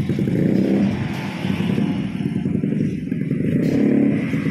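Motorcycle engine running, with road traffic noise.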